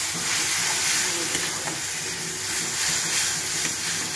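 Hot masala in a kadhai hissing and sizzling loudly as the water just poured in flashes to steam. A flat spatula stirs and scrapes through it, with a few faint clicks.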